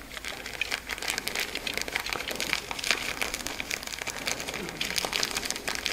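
Plastic bags of model-scenery foliage flock crinkling as the flock is shaken out, with a steady patter of small dry ticks and crackles.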